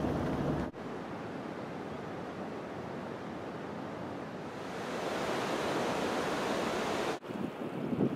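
Steady rushing of a waterfall, a hiss of falling water that grows louder and brighter about halfway through. It starts just after a short stretch of car engine and road hum, which cuts off abruptly.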